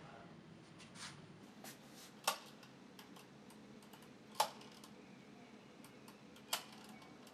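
Three sharp clicks about two seconds apart over faint room tone, with a couple of fainter ticks before the first.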